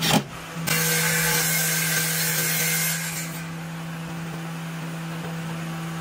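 Cordless drill-driver working screws into wood: a short burst at the start, then a harsh run of about two and a half seconds that stops sharply, over a steady low hum.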